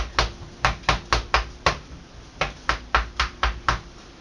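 A big fork stabbing into raw steaks, its tines knocking against the metal sheet pan underneath in quick sharp taps, about three or four a second, with a short pause about halfway through. The steaks are being poked full of holes so the seasonings soak in.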